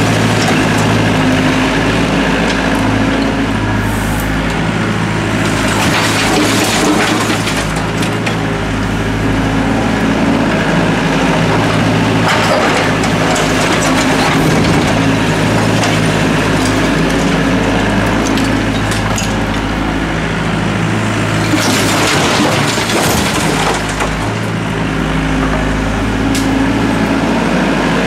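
Doosan DX55W wheeled mini excavator's diesel engine running steadily while its bucket scrapes and crunches through broken brick and concrete rubble. Bursts of clattering debris come several times, most strongly about a quarter of the way in and again about four-fifths through.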